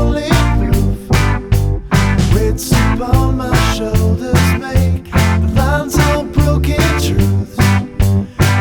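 Background music: a rock-style song with guitar, a steady beat and singing.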